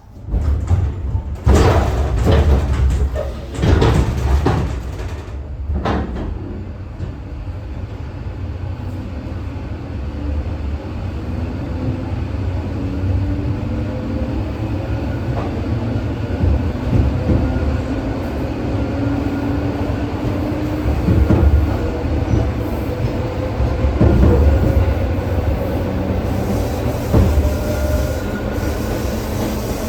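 ED4M electric train pulling away and accelerating: a few heavy knocks and jolts in the first few seconds, then a steady rumble of wheels on track with a traction-motor whine rising slowly in pitch as the train gathers speed.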